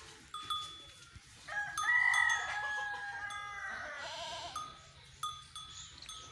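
A long, loud farm-animal call of about two and a half seconds in the middle, its pitch wavering at the end, with a few short high tinkling notes before and after it.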